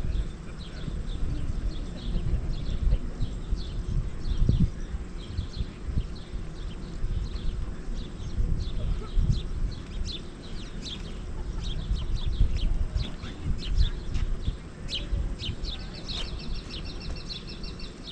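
Small birds chirping over and over, with a rapid repeated trill near the end, against a low, gusting rumble of wind on the microphone.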